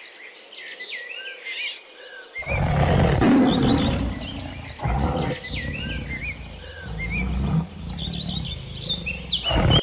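Lion roaring: a few long, deep roars with short breaks, starting about two and a half seconds in, over birds chirping.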